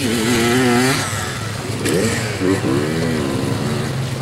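Kawasaki dirt bike engine running and revving, its pitch rising and wavering as the throttle is worked, at the start and again about two seconds in.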